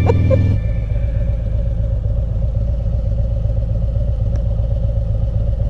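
Harley-Davidson Road Glide's V-twin engine running steadily at low revs, with no revving.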